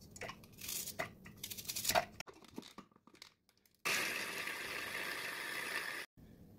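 Onion pieces clicking and rustling into the plastic bowl of an electric hand blender's chopper attachment, then the chopper running steadily for about two seconds, mincing the onion, before cutting off suddenly.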